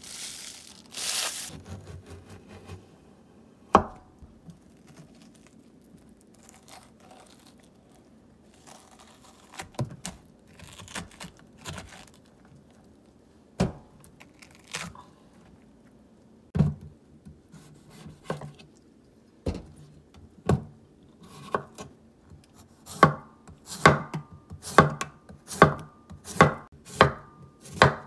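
Chef's knife cutting a firm young pumpkin on a wooden cutting board: scattered single knocks of the blade against the board, then near the end a run of chops about two a second as the pumpkin is sliced. A brief rustle about a second in.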